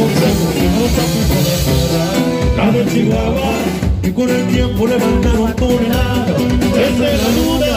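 Live norteño band music: a button accordion carries the melody over a strummed bajo sexto, bass and a steady beat.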